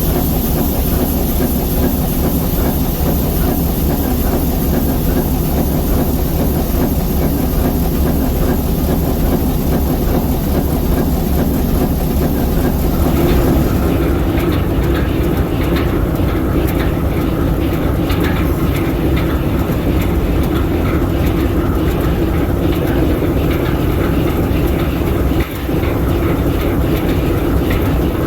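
ALCO 539T six-cylinder turbocharged diesel prime mover of an S4 locomotive running steadily. About halfway through, the high hiss fades and a rapid mechanical clatter with a stronger mid-pitched drone comes forward.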